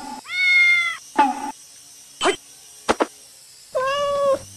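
Domestic cat meowing twice: a drawn-out meow near the start and a lower one near the end, with two short sharp taps between them.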